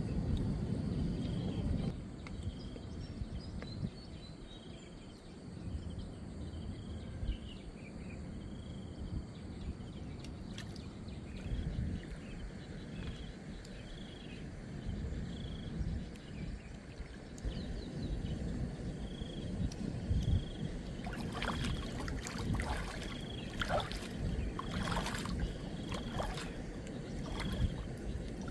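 Water sloshing and lapping around a small boat being paddled. A short high chirp repeats about once a second throughout. Sharp knocks and splashes cluster in the last third.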